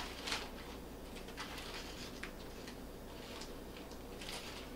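Faint, scattered crackles of wax paper and soft handling sounds as a square of sticky hardtack dough is peeled off the paper.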